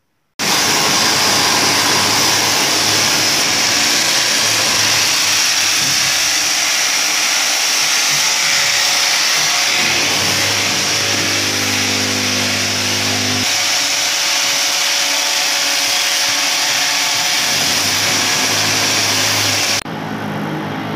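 A power tool running steadily at a loud level, cutting in suddenly about half a second in and dropping in level just before the end.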